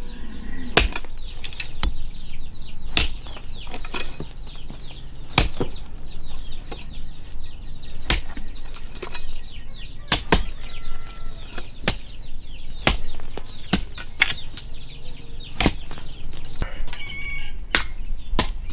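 Sharp knocks like chopping, roughly one a second and irregular, over a steady chorus of high, short chirps from poultry.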